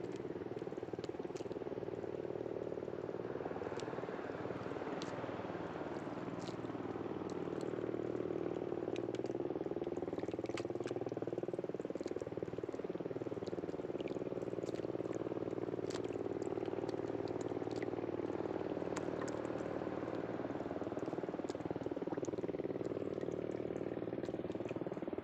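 An engine hums steadily, its tone wavering slowly, with scattered small clicks and crackles from hands handling a fish wrapped in a cloth.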